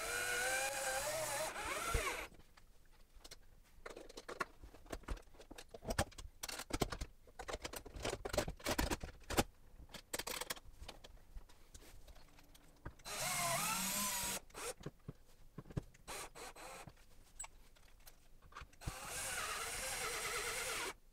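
Cordless drill driving mounting screws with a Torx bit into a wooden wall, in three runs of about two seconds each: at the start, about 13 seconds in and near the end. Each time the motor's whine rises as it speeds up. Between the runs come scattered clicks and knocks of handling.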